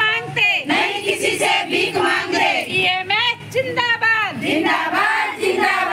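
A group of women chanting protest slogans together, their high voices loud and overlapping, in short phrases with brief breaks between them.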